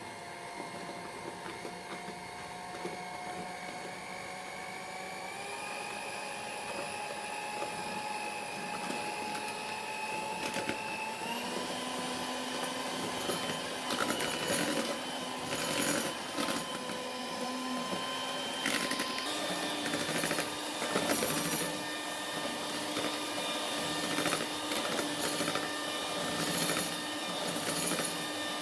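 Electric mixer beating sponge-cake batter: a steady small-motor whine that steps up in pitch three times as the speed is turned up.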